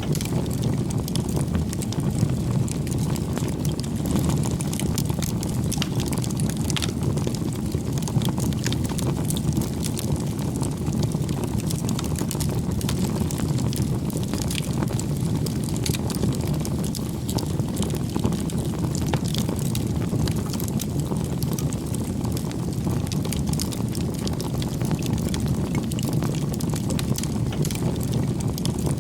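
Bonfire burning, the wood giving off scattered sharp crackles and pops over a steady low rumble.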